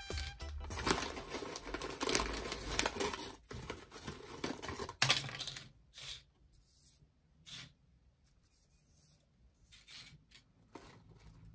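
Tortilla chips and their chip bag crackling and crinkling as a gloved hand breaks and presses the chips on a stainless-steel plate. Dense crackling with many small cracks for about five seconds, then only scattered small cracks.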